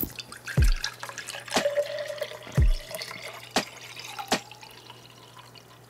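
Water poured from a plastic bottle into a tall drinking glass: a run of glugs and splashes as the glass fills, dying away near the end.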